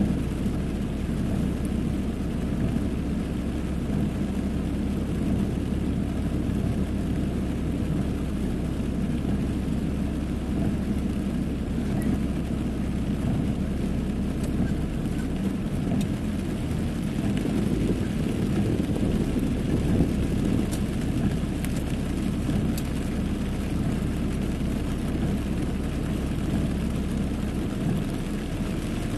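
Car engine running, heard from inside the cabin, with heavy rain hissing on the car. The low engine note changes about halfway through as the car moves forward.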